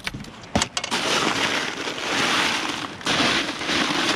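A few clicks as a cooler lid is opened, then crushed ice crunching and rattling as a hand and a fish are pushed down into the cooler's ice for about three seconds.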